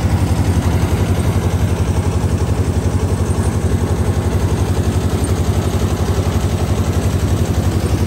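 An engine running steadily, with an even, rapid chugging pulse and a low hum.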